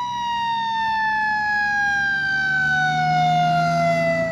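Fire-engine siren winding down: one tone sliding slowly and steadily down in pitch, over a steady low hum.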